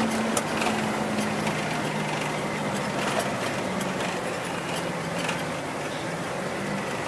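Vehicle engine and road noise heard from inside the cab while driving; the engine note drops a little about a second and a half in.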